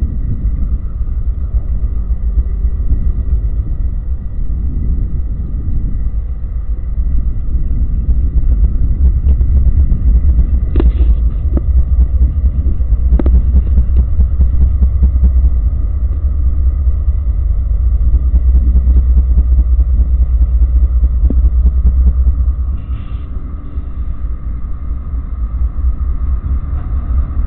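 Ex-CSX GE Dash 8 diesel locomotives working past at low speed: a heavy, steady engine rumble with a faint high whine over it. The rumble swells in the middle and eases about 22 seconds in, with a couple of sharp clicks along the way.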